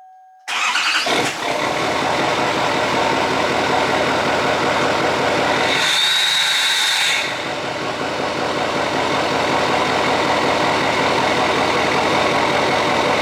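LML Duramax 6.6-litre turbodiesel V8 starting about half a second in, catching at once and settling into a steady idle. It fires right up without needing high idle, warm from its block heater. A brief high whistle rises over the engine about six seconds in.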